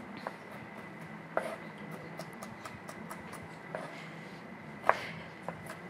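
Chef's knife chopping fennel on a white plastic cutting board: a run of light, irregular taps of the blade on the board, with a few louder knocks.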